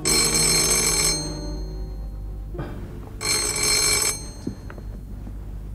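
Telephone ringing: two rings about a second long, the second about three seconds after the first.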